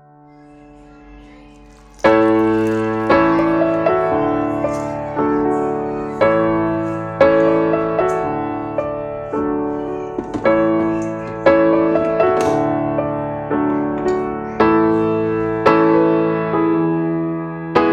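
Background piano music: chords struck about once a second, each ringing and fading before the next, after a soft fading note at the start.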